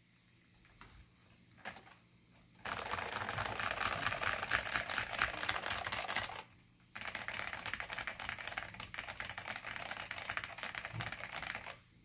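Fast typing on a NeXT non-ADB keyboard with lubed Alps SKCM Black (Pine) switches and Alps keycaps: a rapid run of key clicks. After a couple of faint clicks, the typing starts about two and a half seconds in, stops for half a second past the middle, then goes on until just before the end.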